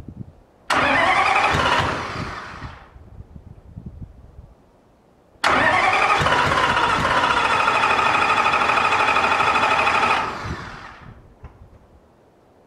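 Detroit Diesel 4-53T two-stroke diesel cranked on its starter twice, a short burst and then about five seconds. Each begins with a rising whine as it spins up and winds down over a second or two when released. The engine does not catch: it is cranking while fuel is still being drawn up through the newly redone fuel system.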